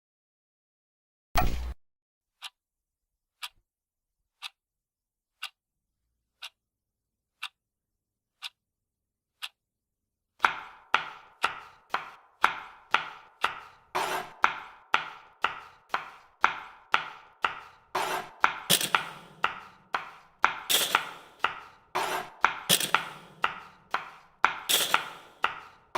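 Kitchen sounds in a rhythm: one heavier knock, then sharp ticks once a second like a clock. About ten seconds in, a steady run of knocks and taps starts, roughly two a second, some louder than others.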